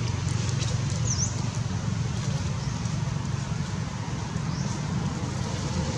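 Steady low outdoor background rumble with no clear source, and one short high chirp about a second in.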